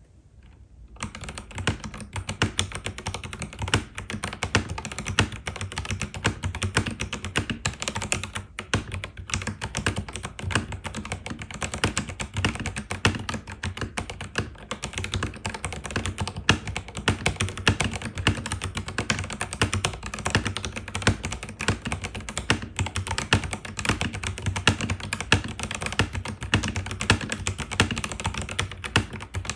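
Continuous fast typing on an FL-Esports FL980 mechanical keyboard with factory-lubed Kailh Box Red switches on a steel plate, heard through an iPhone 12 Pro Max microphone. The typing starts within the first second.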